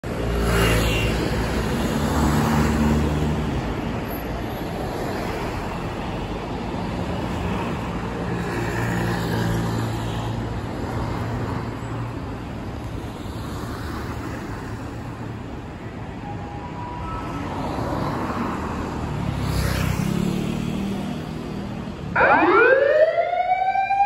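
Street traffic passing steadily, then near the end a fire department van's electronic siren (not a mechanical motor siren) starts up: one loud rising wail that climbs and levels off.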